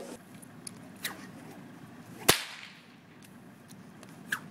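A long braided bullwhip cracking. One loud, sharp crack comes about halfway through, with two fainter cracks about a second in and near the end.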